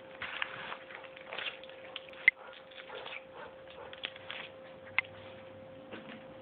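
A hairless cat eating dry kibble from a plate: irregular crunching as it chews, with a couple of sharp clicks from the pieces or the plate.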